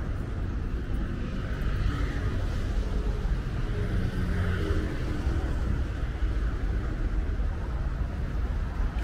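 City street traffic: cars driving past over a steady low rumble.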